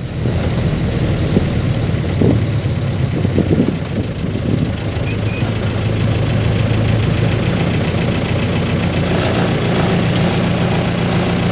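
Diesel engine of a Marcopolo Senior minibus on a Mercedes-Benz LO 814 chassis running while the bus drives, heard from the driver's seat as a steady drone. Its pitch rises near the end, with a short hiss.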